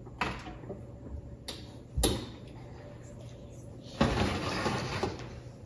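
A stainless wall oven being opened: a few light clicks, a loud knock of the door opening about two seconds in, then about a second of scraping rush as the oven rack is pulled out.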